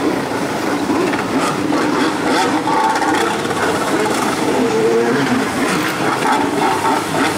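Stand-up jet ski engine running at varying throttle while the craft carves tight turns, its pitch wavering up and down over a steady rush of noise.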